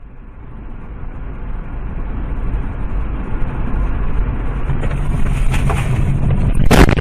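Dashcam recording of a car's low engine and road rumble growing steadily louder, then a loud crash near the end as the car collides with a tractor.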